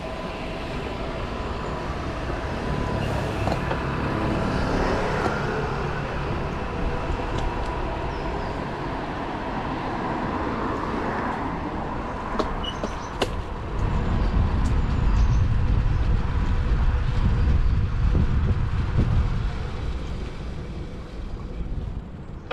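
City road traffic heard from a moving bicycle, a steady noise of passing cars, with a few brief clicks about halfway through and a louder low rumble from about two-thirds of the way in.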